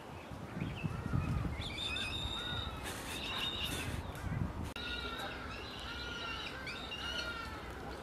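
A juvenile black sparrowhawk calling over and over, begging for food. Each call bends slightly downward, and they come about two a second, starting about one and a half seconds in. There are a few low thuds near the start.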